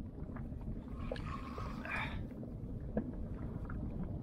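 Choppy sea water lapping and sloshing against an inflatable boat, a steady low wash of noise with a few light knocks.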